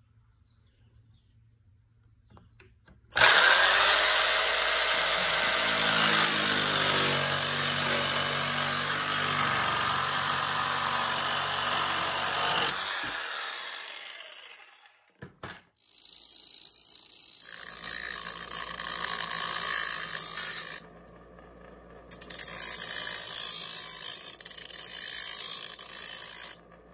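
A jigsaw with a metal-cutting blade cuts a metal angle bracket for about ten seconds, then winds down. After a couple of clicks, a bench grinder grinds the cut edge of the bracket, with a short break partway through, and cuts off suddenly near the end.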